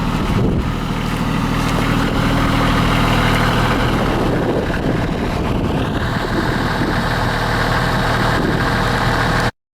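Bobcat CT225 compact tractor's diesel engine running steadily, driving the PTO backhoe. A higher note joins about six seconds in, and the sound cuts off suddenly near the end.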